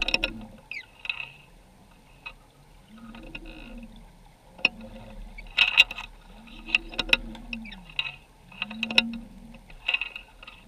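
Underwater noise picked up through a camera's waterproof housing on the seabed: scattered sharp clicks and knocks, and low moaning tones that rise and fall in pitch about every two seconds.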